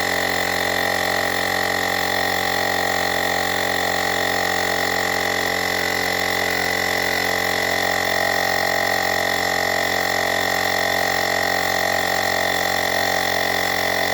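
Handheld battery-powered portable tyre inflator running steadily as it pumps up a motorcycle tyre, an even motor drone with a high, constant whine.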